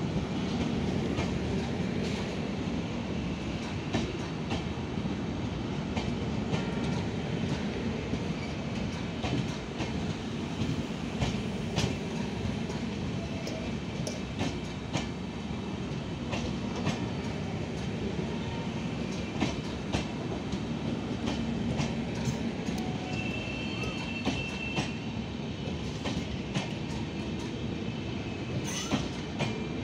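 Passenger coaches of an express train rolling past with a steady rumble, the wheels clicking over rail joints. A brief high squeal comes about two-thirds of the way through.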